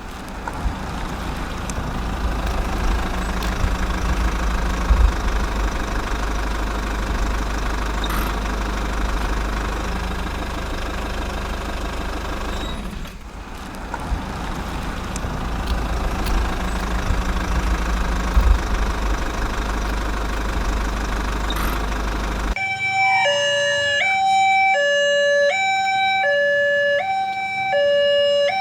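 A dense rumbling noise with heavy deep bass runs for about twenty seconds, dipping briefly about halfway through. It then cuts off abruptly and a two-tone emergency siren takes over, switching between a high and a low note about once a second.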